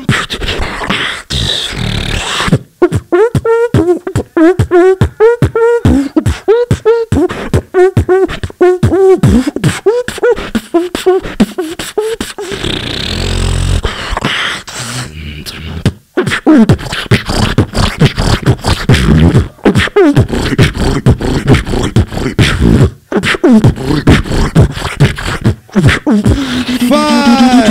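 A solo beatboxer performs into a microphone, amplified through a PA. Rapid vocal drum hits run under a hummed, bending melody line. About midway comes a stretch of deep, sustained vocal bass, then dense fast percussion again, and a falling hum near the end.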